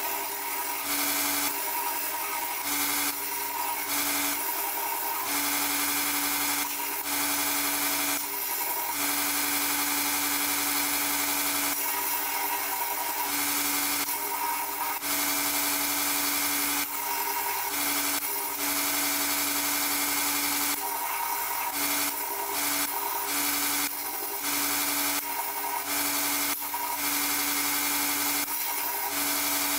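Belt grinder running an 80-grit belt, grinding a steel san mai knife blade held in a jig. A steady motor and belt hum runs under a hissing grinding noise that breaks off and resumes every second or two as the blade is pressed to the belt and lifted. The grinding takes metal off the edge to expose the wootz core.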